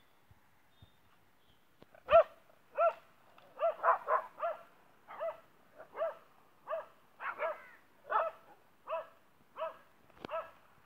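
A dog barking over and over, about one and a half short barks a second, some in quick pairs, starting about two seconds in.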